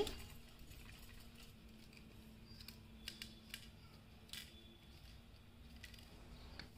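Faint small clicks and ticks, a handful scattered over a few seconds, from grating cheese on a hand grater and shaking chilli flakes from a small jar onto a plate of potato chips, over a faint steady hum.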